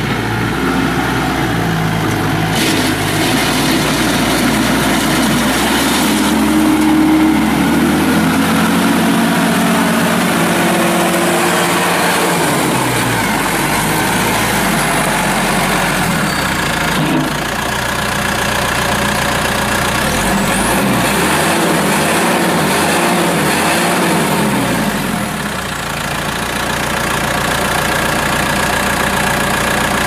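2006 New Holland TC55DA compact tractor's diesel engine running as the tractor drives on gravel. The engine speed rises about six seconds in, drops back around twelve seconds, sits lower for a few seconds past twenty, then picks up again near the end.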